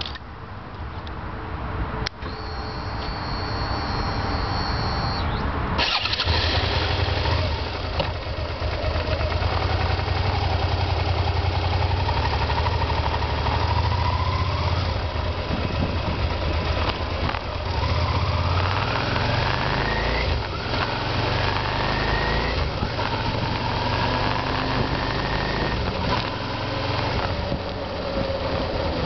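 Suzuki SV650S's V-twin engine: a click and a thin high whine for about three seconds, then the engine starts about six seconds in and keeps running as the motorcycle pulls away, its revs rising and dropping back several times through the gear changes.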